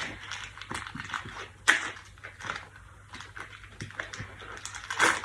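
Candy packaging being handled and unwrapped: scattered light clicks and crinkles, with a sharp tap a little under two seconds in and another near the end.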